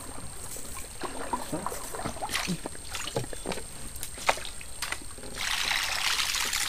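Light clicks and knocks from the wooden canoe and tackle. About five seconds in, a steady hissing churn of water starts as a double-propeller surface lure is reeled back across the creek.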